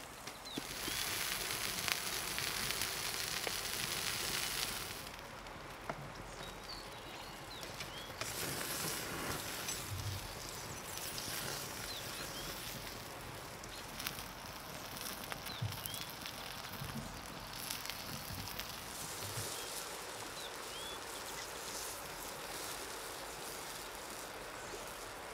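Beef fillet steak sizzling on a hot river stone over a wood fire, loudest for the first few seconds and again around the middle, with the fire crackling. Short bird chirps come now and then.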